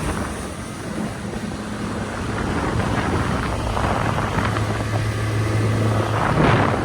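Boat's Mercury outboard motor running under way, a steady low drone that grows stronger about four seconds in, over rushing water and wind.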